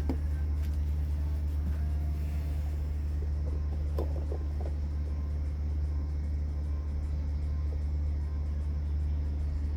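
Steady low hum, with a few faint light ticks about four seconds in.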